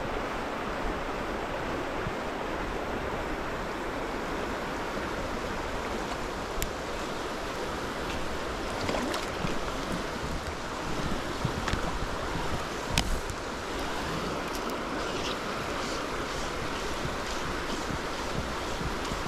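Shallow river water running and rippling steadily, with some wind on the microphone. A few sharp clicks and taps break through, the loudest about two-thirds of the way in.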